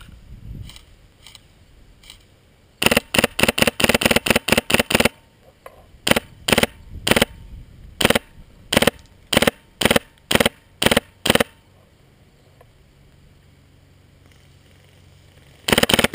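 Polarstar air-powered airsoft M4 firing: a fast burst of about a dozen sharp cracks, then a string of single shots about two a second, and another short burst at the end.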